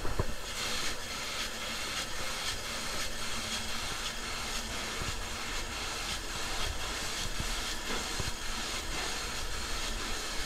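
Polyurethane spray foam gun spraying: a steady hiss of air and foam that starts about half a second in, with a faint pulse about twice a second.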